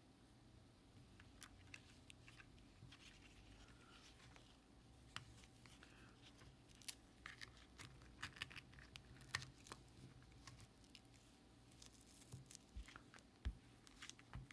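Faint, irregular clicks and light rustling from small objects being handled, over a low steady hum.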